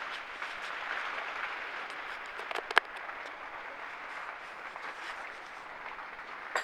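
Steady hiss of heavy rain from a wind and rain storm, with a couple of sharp clicks nearly three seconds in.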